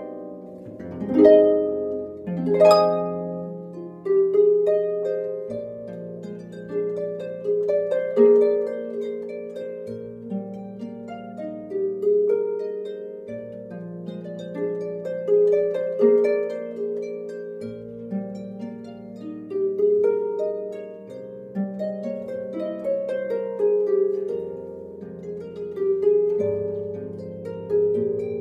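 Solo concert pedal harp playing: plucked strings ringing over a bass line, with two loud chords in the first three seconds, then an even, lighter melody over the held bass notes.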